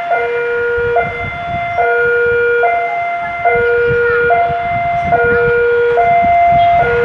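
Railway level crossing warning alarm sounding its two-tone signal, a higher and a lower tone taking turns about every 0.8 seconds without a break. It is the warning that a train is about to pass over the crossing.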